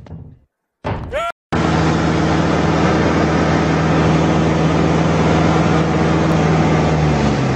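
Light aircraft's piston engine and propeller drone heard inside the cockpit, loud and steady at an even pitch.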